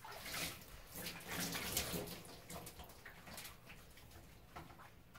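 Water running and splashing in a tub as a dog is bathed. It is loudest in the first two or three seconds, then gives way to fainter scattered splashes.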